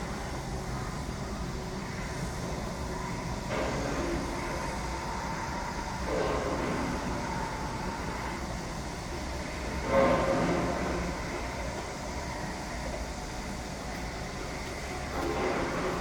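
Construction site noise: a steady low rumble of heavy machinery, with a few louder clanking surges, the loudest about ten seconds in.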